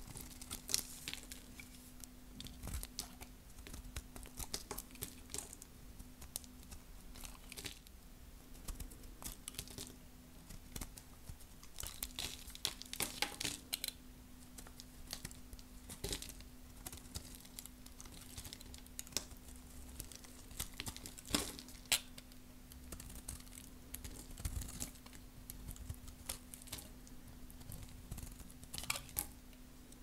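A blade carving and cutting very dry, hard soap: irregular crunchy crackles and small clicks as the soap breaks away, thicker in a few spells. A faint steady hum runs underneath.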